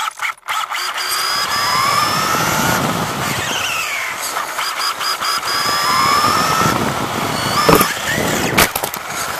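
Losi XXX-SCT radio-controlled short course truck's electric motor whining, rising and falling in pitch as the throttle changes, over the crunch of its tyres on gravel. Two sharp knocks come near the end.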